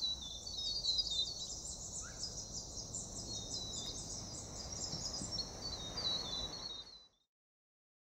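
Outdoor ambience: many small birds chirping and twittering in quick, high repeated notes over a low background rumble. It cuts off suddenly to silence near the end.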